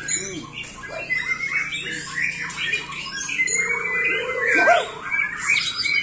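Many caged songbirds singing at once: a dense overlapping mix of short chirps, trills and sweeping whistled notes, with no break.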